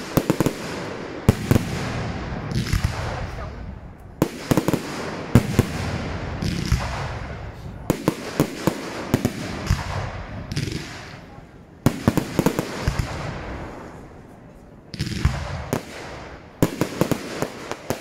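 Fireworks display: aerial shells bursting in quick succession with sharp bangs and crackling. It thins to a lull about three-quarters of the way through, then a fresh volley of bangs starts.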